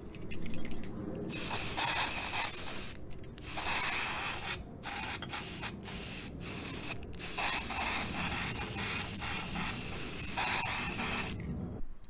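Aerosol can of silicone grease spray spraying onto a steel shaft. It starts about a second in and runs in a string of long and short sprays broken by brief pauses, stopping shortly before the end.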